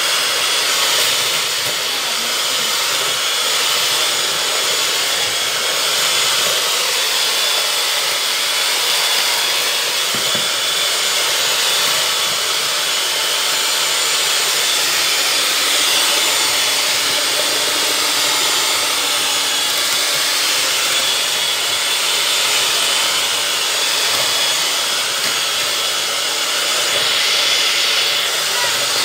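Electric hand mixer running steadily, its wire beaters churning butter cookie dough in a bowl: a constant motor whir with a faint high whine.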